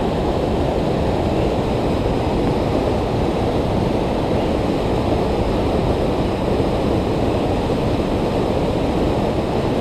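Waterfall white water rushing steadily down a rock chute, a constant noise heaviest in the low range.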